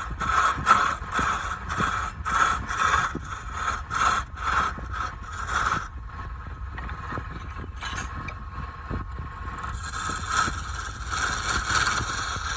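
Wood being worked with rhythmic back-and-forth strokes, about two a second, over a steady low hum. The strokes stop about six seconds in, giving way to a steadier scraping that grows louder near the end.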